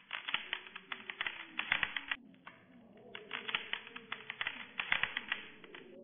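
Sound effect of a stick scratching on dry ground: rapid, irregular scratchy clicks in two runs, the first about two seconds long, the second about three, with a short pause between.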